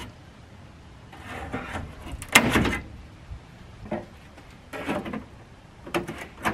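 Hand snips cutting through the sheet-metal outer skin of a Toyota 86's rear wheel arch: a few separate cuts with the metal scraping and bending, the loudest about two and a half seconds in.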